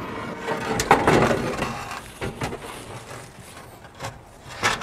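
A four-row aluminium radiator being set down into the truck's radiator support: scraping and rubbing of metal on metal over the first couple of seconds, then a few light knocks as it settles.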